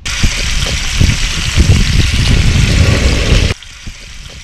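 Loud wind buffeting the microphone, a heavy rumble under a hiss, that cuts off suddenly about three and a half seconds in. After it, metal tongs click lightly against a frying pan as squid rings are stirred.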